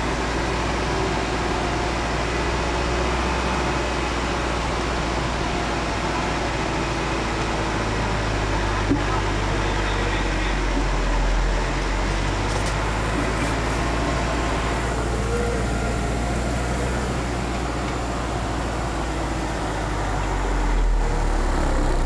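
Four-wheel-drive vehicle's engine running steadily with a low drone while driving off-road, with one short knock about nine seconds in.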